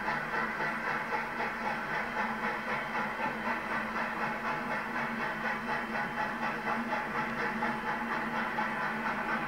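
141R class 2-8-2 steam locomotive working, its exhaust beating in a rapid, even chuff of about four to five beats a second over a steady hiss.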